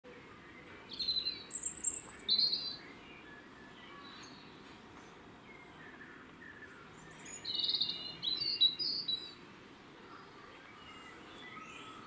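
Common swifts screaming in flight: two bouts of shrill, buzzy, high-pitched screams, the first about a second in and the second just past the middle. Fainter scattered chirps come in between.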